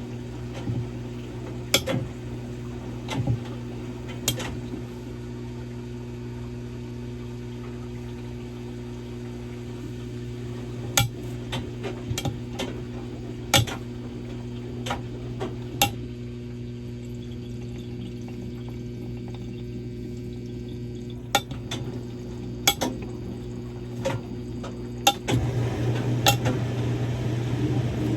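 Samsung Grande washing machine running a quick wash with a padded jacket: a steady motor hum with water sloshing and scattered sharp clicks and clinks, the noise growing louder about three seconds before the end.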